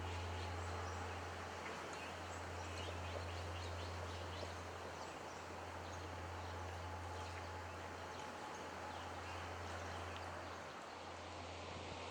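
The lingering low hum of Zojoji's great bronze bonsho temple bell dying away between strikes, swelling and fading in slow pulses about every three seconds. Faint bird chirps sound over outdoor background noise.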